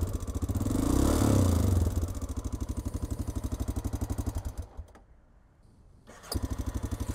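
Honda Dominator NX650 single-cylinder engine running with a pulsing beat and revved briefly about a second in. It then dies away to near silence and is restarted a little over six seconds in, settling back to its beat. The restart does not clear the engine's fault noise.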